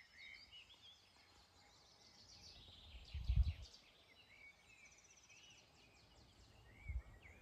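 Quiet forest ambience with a few faint, short bird chirps. A brief low rumble on the microphone comes about three seconds in, and a smaller one near the end.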